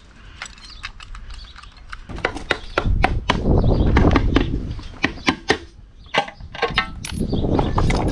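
Metal clicks and knocks of hand tools worked on a dismantled Reliant 750cc engine. A louder stretch of rustling, crunching noise starts about two seconds in and returns near the end.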